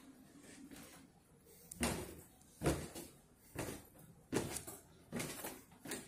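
Footsteps going down a flight of indoor stairs: six thuds, evenly paced a little under a second apart, starting about two seconds in.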